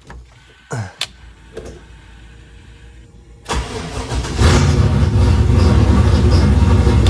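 A car engine is cranked and fires about three and a half seconds in, catching at once and settling into a steady, loud fast idle. This is a clean start after extra ground wires were added; before that, a grounding fault made it strain on the first crank and dim the electrics. A few sharp clicks come first, about a second in.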